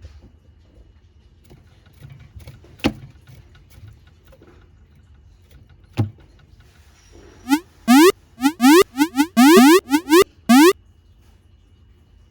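Edited-in cartoon sound effect: a rapid run of about ten short rising pitch sweeps, very loud, laid over a bearded dragon's fast head bobbing. Two sharp clicks come a few seconds before it.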